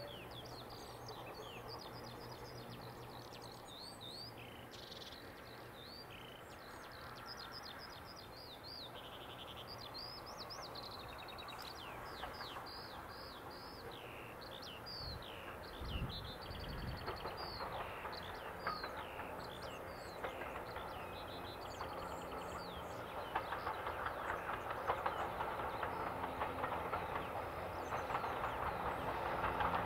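Birds singing as a steam train approaches. The rebuilt Bulleid West Country pacific 34027 Taw Valley and its coaches grow steadily louder over the second half until they are the loudest sound.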